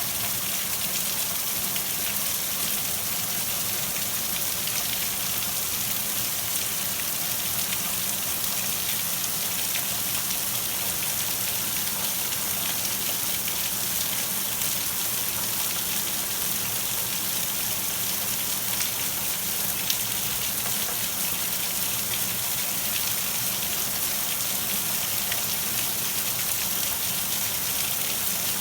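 Storm rain falling steadily, with one brief sharp tick about twenty seconds in.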